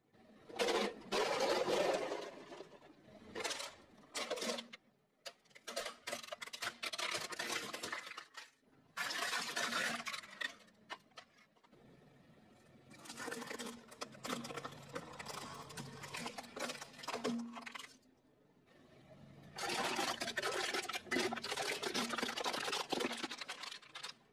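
A car tyre rolling slowly over a run of objects and crushing them, including plastic toys, aluminium drink cans and snack packets. It comes as about six bursts of crackling, snapping and crunching, each a few seconds long, with short lulls between.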